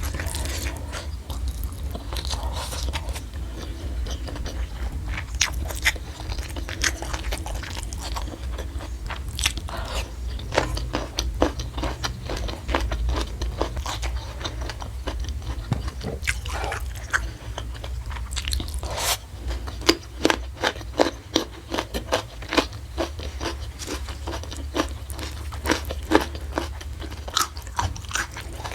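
A person biting and chewing crunchy food close to the microphone, with many quick crunches and mouth clicks, over a steady low hum.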